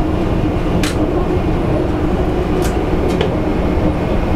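Metro train running on the track, heard from inside the driver's cab: a steady low rumble with a constant hum and a few brief clicks.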